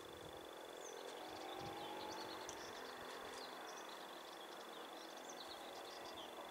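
Small birds chirping and twittering with many short, scattered calls over a faint outdoor background, with a steady thin high tone underneath.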